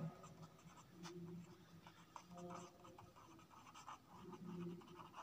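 Faint scratching of a marker pen writing on paper in short strokes.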